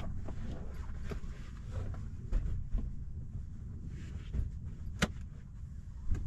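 Van bed cushions and panels being lifted, shifted and set down: a series of knocks and soft thumps, with one sharp click about five seconds in, over a low steady rumble.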